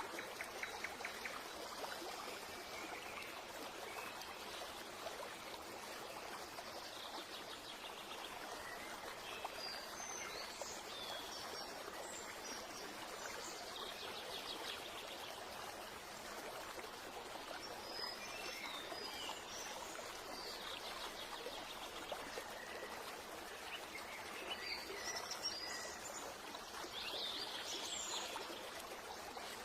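Steady running water of a stream, with birds chirping now and then over it.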